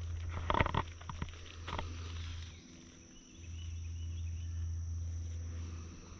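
Footsteps crunching and rustling on a woodland trail in the first two seconds, over a steady high-pitched drone of summer insects. Under them runs a low steady rumble that drops out briefly about three seconds in.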